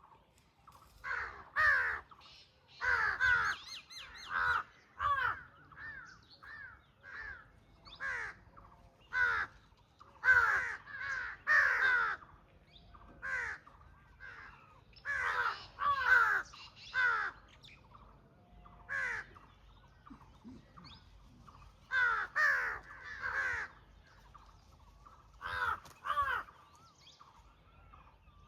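Crows cawing repeatedly, loud harsh calls coming in clusters of two or three every second or two, with fainter bird calls between.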